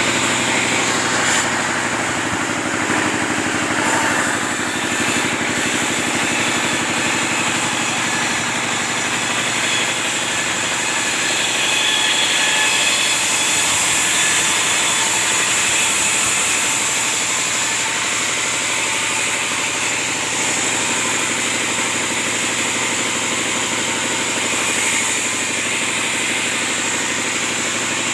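Sawmill machine running steadily while sawing timber into 10x10 beams: a continuous loud mechanical whirring hum with a steady high whine.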